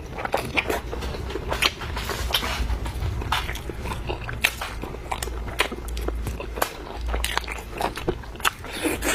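Close-miked eating: chewing and biting with many irregular sharp clicks and smacks, several a second.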